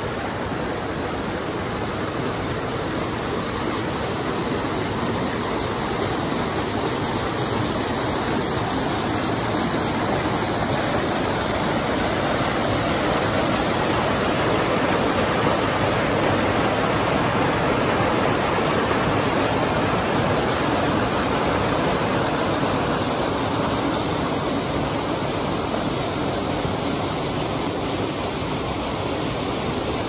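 Small waterfall on a rocky mountain stream pouring into a rock pool: a steady rush of falling water, a little louder through the middle.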